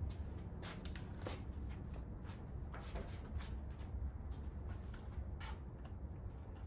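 Scattered light clicks and short rustles of handling, over a low steady hum.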